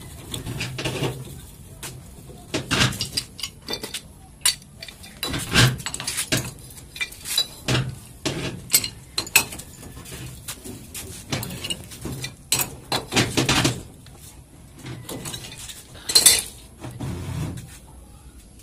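Irregular metallic clinks and knocks of a pipe wrench and brass pipe fittings being handled and screwed together on a deep-well pump pipe.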